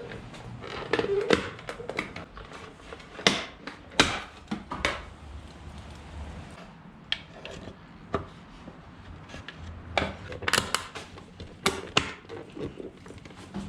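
Plastic side-mirror cover on a BMW 335i being pried at and worked off its clips by hand: irregular sharp clicks and knocks, the loudest about three and four seconds in and a cluster near the end.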